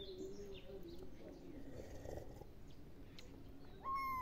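A tabby kitten gives one short, high meow near the end, held level and then dropping in pitch as it stops.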